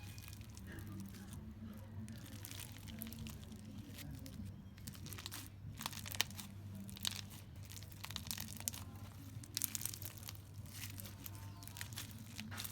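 Slime being squeezed, stretched and folded by hand, giving irregular crackling and popping clicks that grow busier about halfway through, over a low steady hum.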